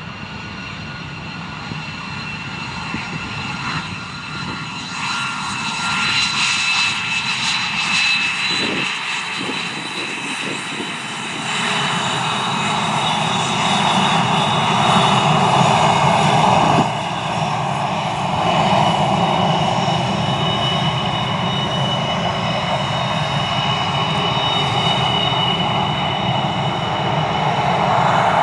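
F-22A Raptor's twin F119 turbofan engines running at low power as the jet taxis on the ground: a steady jet rumble with a high turbine whine, growing louder.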